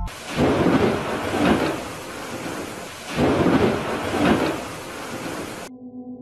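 Thunderstorm: two long rolls of thunder over a steady hiss of rain. It cuts off suddenly near the end, where sustained ambient music tones come in.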